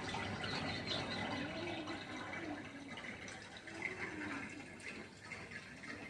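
Faint running water, a steady trickling and pouring like a tap or cistern filling.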